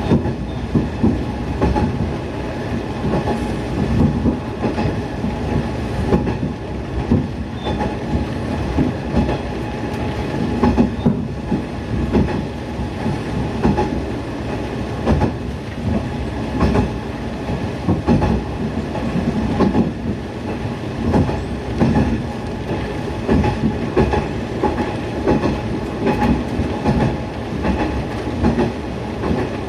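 Niigata Transys NDC diesel railcar running along the line, heard from inside the car: a steady engine and running drone with frequent clickety-clack of the wheels over rail joints.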